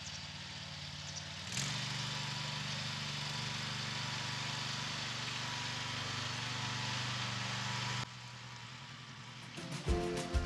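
Ugra walk-behind tractor's single-cylinder petrol engine running steadily as it pulls a harrow over loose soil; it grows louder about one and a half seconds in and drops back about eight seconds in. Music starts near the end.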